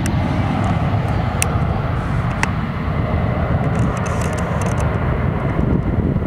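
Jet engines of a departing easyJet airliner climbing out after takeoff, heard from the ground as a steady, loud low rumble. A couple of sharp clicks come about a second and two seconds in.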